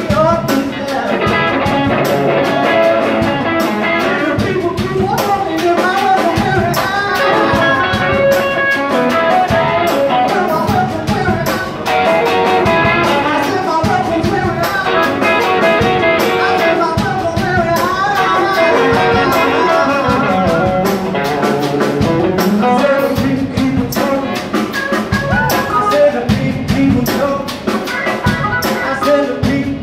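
Live rock band playing: electric guitars and a drum kit, with a male singer.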